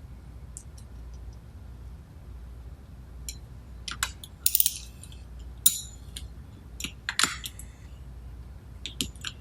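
Small metal parts and hand tools clinking and rattling as a lock nut is run onto an adjusting screw and tightened: about a dozen short sharp clinks scattered unevenly, the loudest a little past the middle.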